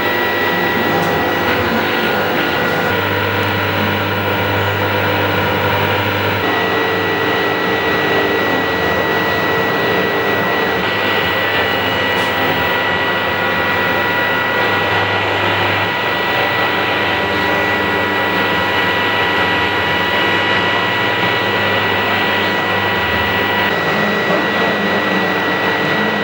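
Generative electronic noise from an audiovisual video-feedback installation: a dense, steady static drone with a constant high tone through it and a low hum that swells and drops every few seconds.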